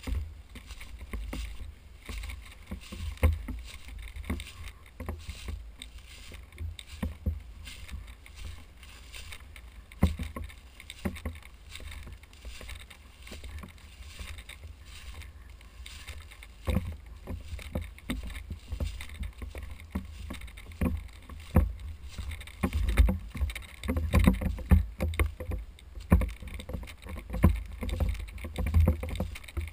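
Footsteps and rustling through dry grass and brush, with a low rumble from wind and handling on a body-worn camera's microphone. The steps and crackles come thicker and louder over the last several seconds.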